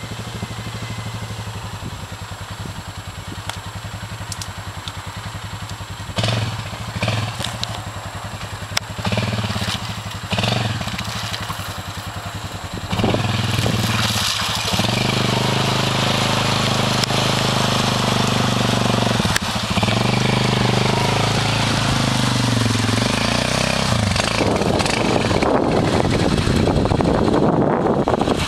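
Suzuki King Quad ATV's single-cylinder four-stroke engine idling, with several short revs. About halfway in it is driven through muddy water, running louder and closer with the pitch rising and falling, over the hiss of the tyres churning the mud and water.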